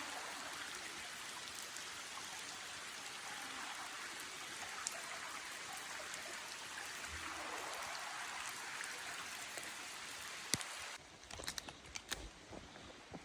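Steady hiss of rain, with a few sharp drip ticks. About eleven seconds in it cuts off abruptly, leaving a quieter background with scattered drips and taps.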